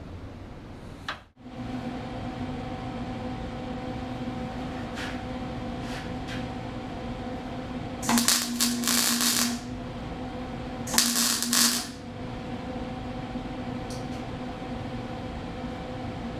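Wire-feed (MIG) welder laying two short welds on the car's sheet-metal core support: a burst of arc noise about 1.5 s long, then a shorter one under a second long about three seconds later, over a steady mains hum.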